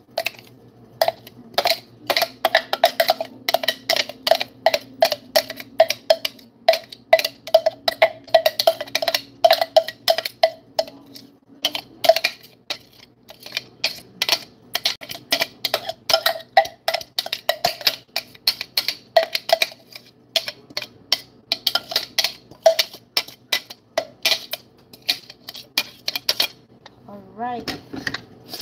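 A utensil knocking and scraping against a plastic food-processor bowl as chopped vegetables are worked out into a mixing bowl: rapid, irregular clicks and knocks, several a second, that stop about 26 seconds in.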